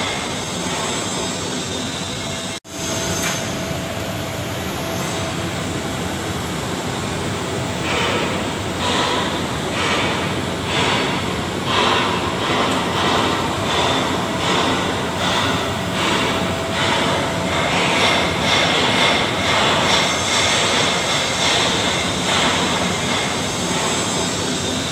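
Steady mechanical noise, a hiss with a hum under it, broken by a short dropout near the start. From about a third of the way in it pulses about once a second.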